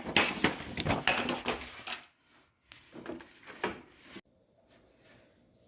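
Irregular clicks and rustling, as of objects being handled, dense for about two seconds and then thinning to a few quieter knocks before cutting off abruptly.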